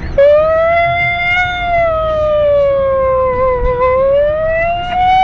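A siren wailing: one loud tone that starts suddenly just after the start, then slowly rises, falls and rises again.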